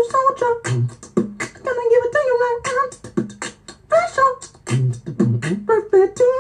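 Beatboxing: mouth-made kick-drum thumps and sharp snare and hi-hat clicks in a quick steady rhythm, woven with hummed vocal tones that slide up and down in pitch.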